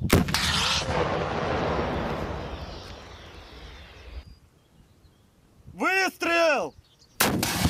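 RPG-7 rocket-propelled grenade launcher fired: a sharp blast right at the start, followed by a long rumbling echo that fades over about four seconds. Later a man gives a short two-part shout, and a second RPG-7 shot goes off just before the end.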